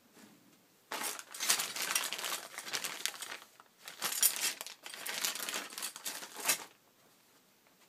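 Clear plastic packaging bag crinkling as it is handled and pressed down, starting about a second in and stopping shortly before the end.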